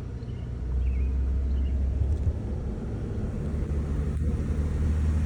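Low rumble of a car driving slowly, engine and road noise, growing louder about a second in. A few faint high chirps sound in the first two seconds.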